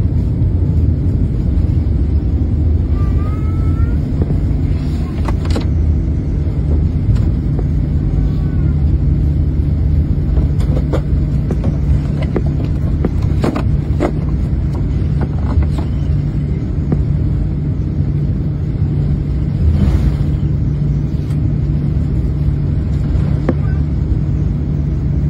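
Cabin noise of a Boeing 787-9 airliner rolling out on the runway after landing: a steady low rumble from the engines and the wheels on the tarmac, with a few faint knocks and rattles. A steady low hum joins the rumble about halfway through as the jet slows toward the runway exit.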